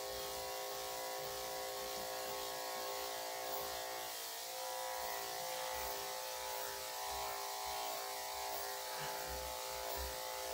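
Electric dog grooming clippers with a 3/4-inch blade, running with a steady buzz as they cut through a Bernedoodle puppy's fur.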